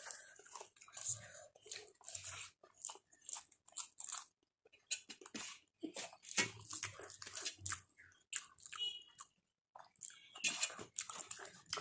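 A person chewing and biting food close to the microphone: irregular crunches and wet mouth sounds with short pauses between bites.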